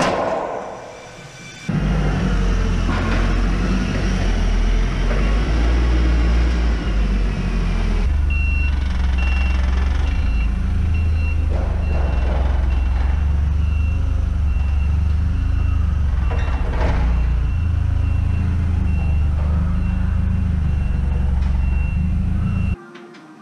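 A heavy vehicle's engine running with a steady low rumble, starting suddenly shortly after the start and cutting off near the end. From about a third of the way in, a reversing alarm beeps at a regular pace.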